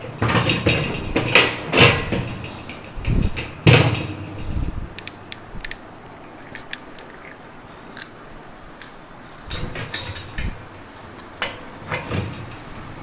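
Metal knocks and clatter as a heavy air impact wrench is handled and set into the ring cradle of a steel trolley stand: a busy run of bumps and rattles in the first few seconds, then scattered clicks, with a few more knocks near the end.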